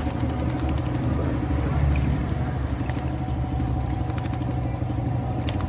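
A steady low motor drone with scattered light clicks and rattles over it.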